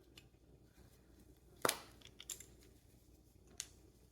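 A few sharp clicks and taps of small pistol slide parts being handled: one loud click a little before halfway, then two fainter ones.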